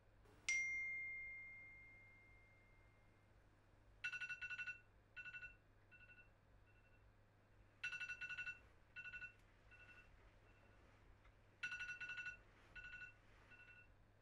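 A single electronic chime sounds about half a second in and rings out over a couple of seconds. From about four seconds a smartphone rings with a repeating pattern: a rapid buzzy trill of two-tone beeps, then a few shorter fading beeps, starting over roughly every four seconds. A faint low hum runs underneath.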